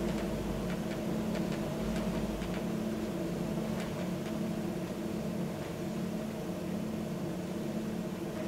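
Steady low droning hum of several held tones, with a few faint scattered clicks and crackles in the first half.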